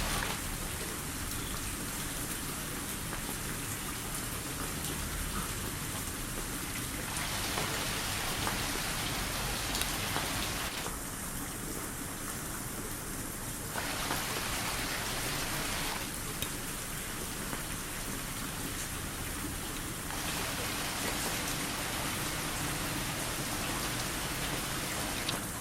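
Steady rain falling and splashing on surfaces, a continuous hiss; its brightness drops and comes back abruptly several times.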